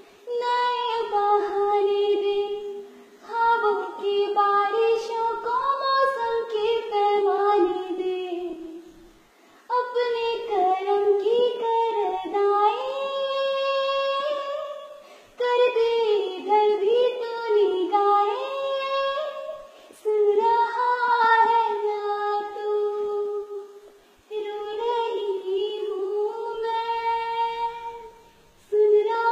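A schoolgirl singing a song alone, with no accompaniment, in a small room. One voice holds and bends notes in phrases of about four to six seconds, with a short pause for breath between each.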